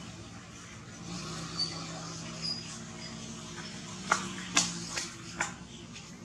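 A couple of faint, short, high squeaks from baby macaques, then a few sharp clicks in the second half, over a steady low hum.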